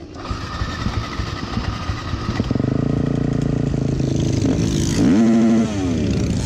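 A group of cruiser motorcycles riding past on a paved road. Their engines grow louder as they approach, with rises and falls in pitch, and are loudest about five seconds in as the lead bike goes by close.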